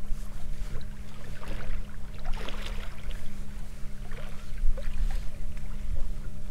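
A small boat's motor running with a steady low hum as the boat moves, with water splashing against the hull now and then.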